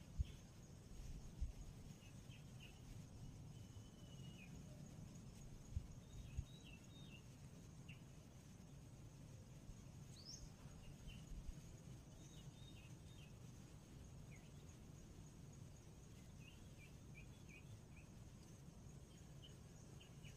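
Faint outdoor forest ambience: small birds give short chirps every second or two, over a steady high insect drone and a low rumble. A few soft thumps come in the first seven seconds.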